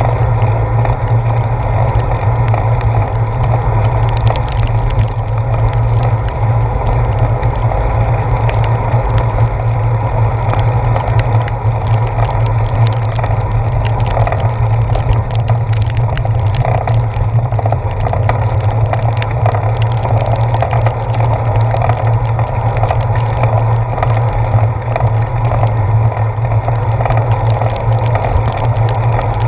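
Bicycle ride on a wet road in rain as picked up by a handlebar-mounted GoPro Hero 4: a steady low rumble of road and tyre vibration coming through the mount, with many small ticks and taps over it.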